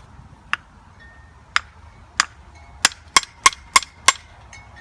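Sharp clicks and knocks of hard fan parts being handled, about eight in all, coming faster in the second half, some with a short ringing clink.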